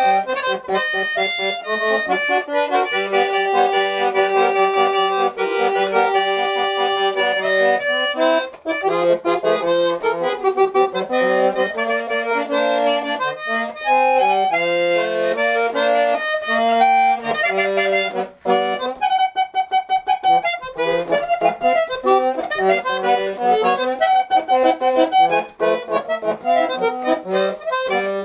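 A small button accordion (bayan) played solo: a melody over chords, without singing.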